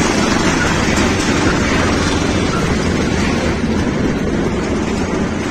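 Engine of a 5.5 hp two-wheel tractor (motor hoe) running steadily while it travels along a road, a continuous rumble.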